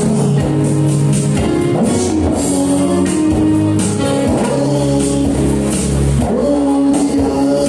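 Band music with a bass line, guitar and percussion.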